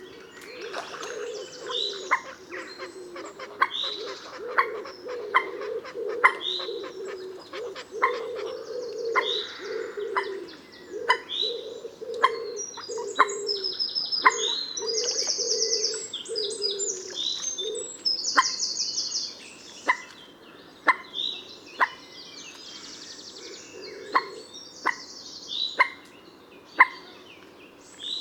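Common moorhen giving a long series of short, sharp call notes, about one a second. Under them runs a low steady drone that stops about two-thirds of the way through, and high buzzy trills from another bird come in the middle and again near the end.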